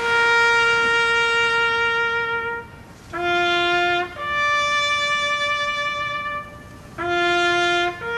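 Solo trumpet sounding a slow bugle call: long held notes, one at a time, climbing in steps from a low note to higher ones, with short breaths between them. The first note is held about two and a half seconds, and the low note returns twice.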